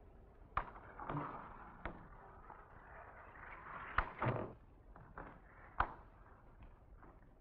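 Irregularly spaced soft knocks and thumps of bare feet stepping and shifting weight on a stage floor, about six in all, over a faint steady hiss.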